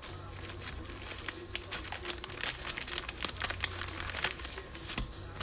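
Plastic crinkling and rustling as a trading card is handled in gloved hands with its plastic sleeve: a dense run of small crackles, busiest in the middle.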